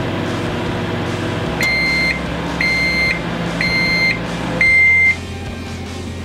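Microwave oven humming as it runs, then four high beeps about a second apart signalling the end of the cooking cycle; the hum stops at the last, loudest beep.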